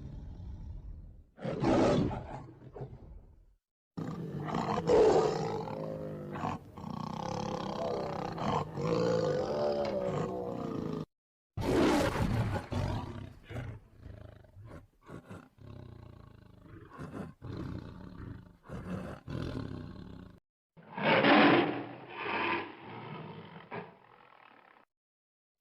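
Tiger roars and growls, played as separate clips with short silent gaps between them. There is a loud roar about two seconds in, then a long wavering growl, another loud roar about halfway, quieter short sounds, and a last loud roar near the end.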